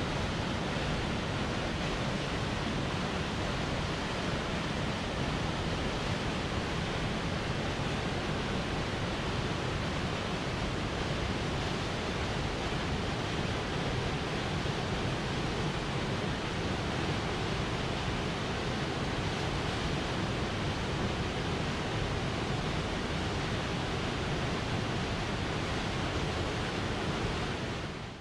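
Salt Creek Falls, a waterfall, rushing in a steady, even roar that cuts off right at the end.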